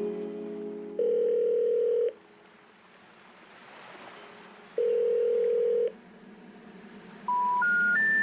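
Telephone line tones: two long, steady beeps about three and a half seconds apart, like a ringback tone. Near the end come three short tones stepping up in pitch, the special information tone played when a number cannot be reached.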